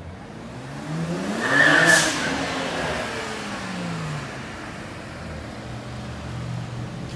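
BMW E90 335i's turbocharged inline-six revving up under a short burst of throttle, loudest about two seconds in, then the revs fall away as it lets off. A lower steady engine drone follows as the car rolls in at low speed.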